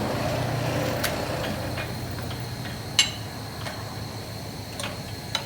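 Steady low machine hum that slowly fades, broken by a few sharp metallic clicks, the loudest about three seconds in.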